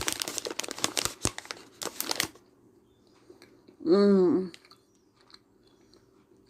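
Loud crunching of dried pineapple fruit chips being chewed close to the microphone, dying away after about two seconds. About four seconds in comes a short hummed "mmm" of enjoyment, a vocal eating sound effect.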